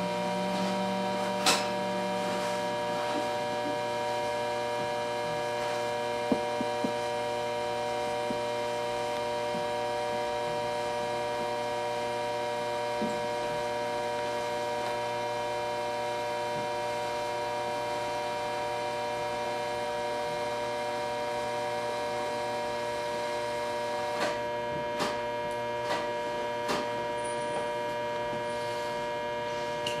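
Electric train's onboard electrical equipment humming steadily while it stands still: a continuous electrical hum made of several steady tones, with no wheel or motor noise. A few faint clicks come near the end.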